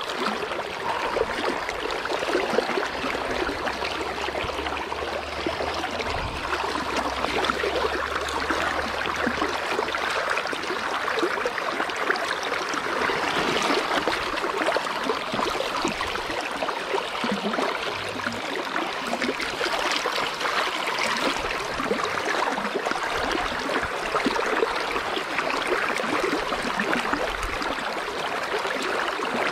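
Steady rush of a river's current flowing over a pebble bottom.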